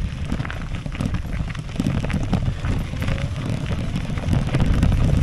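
Wind buffeting the microphone of a camera on a bicycle's handlebars: a steady low rumble with scattered knocks and rattles from riding over a bumpy path.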